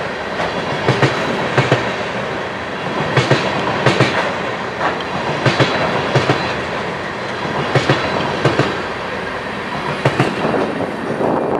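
Flatcars loaded with wind turbine blades rolling past on steel wheels: a steady rumble with paired clicks as each set of wheels crosses a rail joint, repeating about every second or so.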